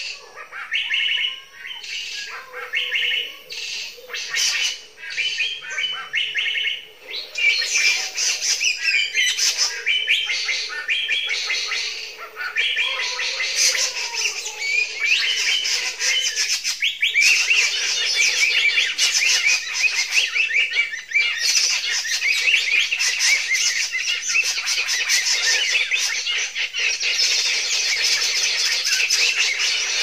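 A bird-lure call player, the 'mesin ATM' used for trapping birds, plays a dense, unbroken stream of small-bird chirps and chatter to draw birds down. The chirping thickens about seven seconds in, and a lower wavering call runs underneath through the first half.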